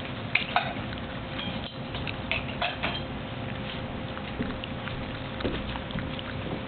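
A litter of puppies eating dry kibble from bowls: an irregular patter of chewing and kibble clicking against the bowls, with a few sharper clicks about half a second in and again around two and a half seconds in.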